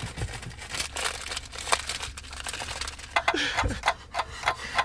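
Irregular crinkling and crackling clicks, with a short strained vocal whimper about three and a half seconds in.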